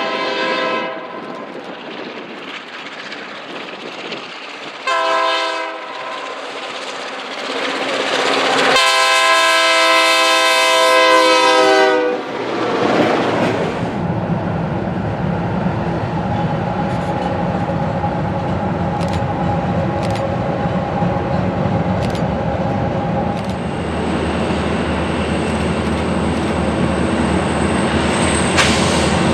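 Diesel locomotive air horn: the tail of one blast, a short blast about five seconds in, then a long loud blast, the closing short-long of a grade-crossing signal. The train then rolls past with a steady engine and wheel rumble and faint clicks over rail joints.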